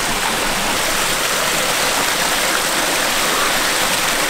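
Small waterfall spilling over rock into a creek pool: a steady rush of falling water.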